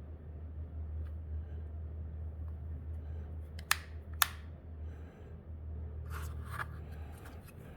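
Two sharp clicks about half a second apart from a 2020 Nissan Altima rear door latch and lock mechanism worked by hand, followed by softer clicking and handling of the parts. A steady low hum runs underneath and stops near the end.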